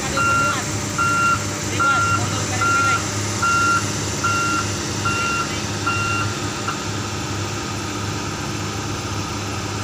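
Heavy-equipment warning beeper sounding a steady beep about every 0.8 seconds, stopping about six seconds in. Underneath it, diesel engines run with a steady low hum.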